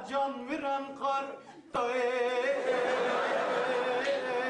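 A man singing an uzun hava, a free-rhythm Turkish folk lament, unaccompanied: a few short sung syllables, a brief break, then from about two seconds in one long held note with wavering ornaments.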